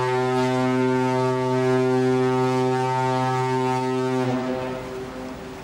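Ship's horn sounding one long, low, steady blast that stops about four seconds in and dies away.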